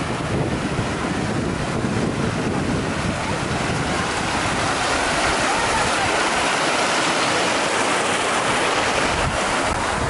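Fountain water jets and a water-wall cascade splashing steadily into a shallow basin.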